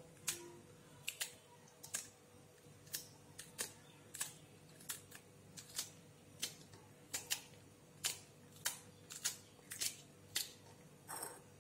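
Kitchen knife slicing okra pods into small rounds, the blade tapping on a ceramic plate: faint, sharp clicks at an uneven pace of about two a second.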